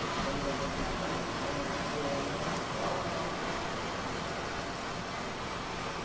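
Car engine idling steadily.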